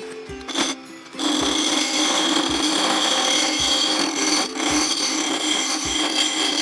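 Carbide turning tool cutting a spinning ipe drumstick blank on a Harbor Freight mini wood lathe. A brief touch about half a second in is followed by a steady cut from about a second in: a loud scraping hiss with a steady high whine. Background music with a steady beat runs underneath.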